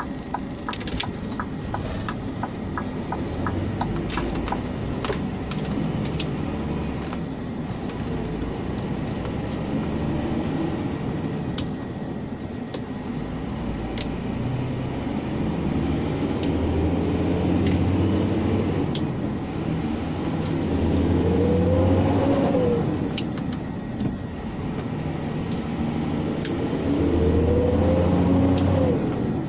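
Scania G460 truck's diesel engine heard from inside the cab, pulling a heavy load. Twice in the second half its note climbs and then drops back as a gear is changed. A quick, regular ticking runs through the first few seconds.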